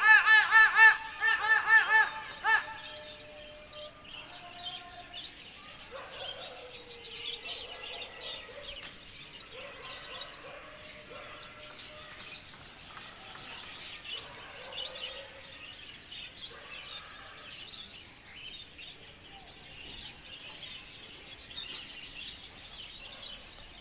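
A quick run of loud warbling pitched notes in the first couple of seconds, then small birds chirping faintly on and off.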